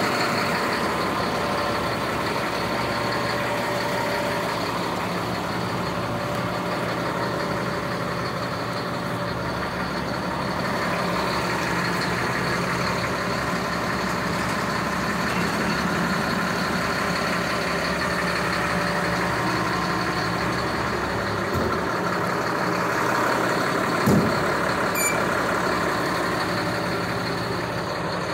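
Caterpillar 3126 inline-six diesel engine of a Ford F650 service truck idling steadily, with a faint steady high whine over it. A single sharp knock comes about 24 seconds in.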